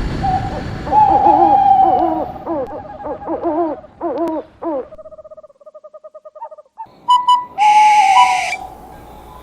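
Owl calls: a run of pitched hoots that slide down in pitch, then a fast trilled call about halfway through. Near the end there are a few clicks and a short hiss-like burst.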